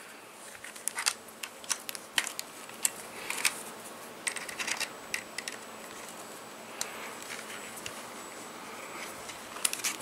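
Scattered small clicks, taps and rustles of an antenna cable and its plug being handled and fitted to a small portable TV, over a faint steady hiss.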